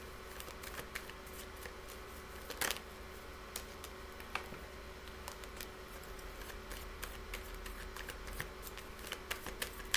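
Tarot cards being handled: scattered soft clicks and flicks of card stock, coming more often in the second half, over a steady faint hum.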